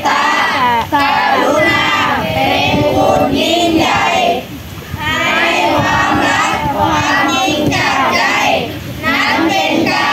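A large group of young Buddhist novice monks singing a dharma song together in Thai, many children's voices at once, with short breaks between lines.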